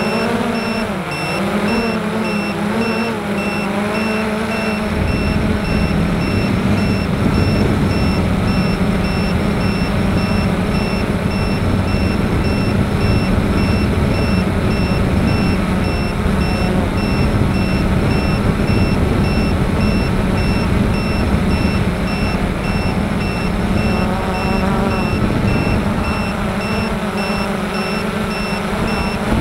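Model aircraft motor and propeller heard from the onboard camera: a steady hum with a high steady whine over it, and wind rushing across the microphone that grows louder about five seconds in. The pitch wavers near the start and again about 24 seconds in as the throttle changes.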